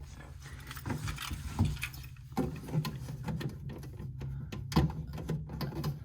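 Hands working on a mini fridge's thermostat housing: a run of irregular clicks, knocks and rattles of plastic and metal parts being handled.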